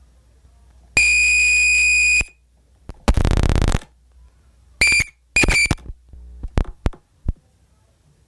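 Experimental electronic music made of sparse electronic sounds: a held high beep lasting about a second, then a harsh buzz, two short beeps and a few sharp clicks, each separated by silence.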